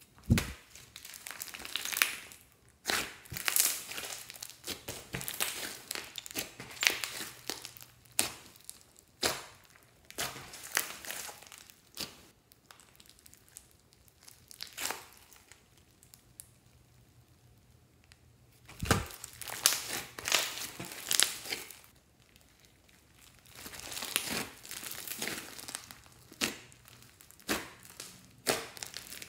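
Slime mixed with clay and floam beads being pressed and stretched by hand, giving off dense runs of sticky crackles and pops. The crackling comes in spells, with quieter pauses around the middle and again a little after.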